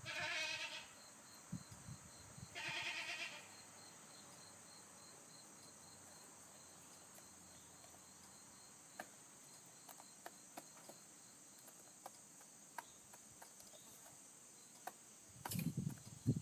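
Wheaten Ameraucana cockerel making two short pitched sounds about two seconds apart near the start, then faint scattered clicks, with low thumping noise near the end.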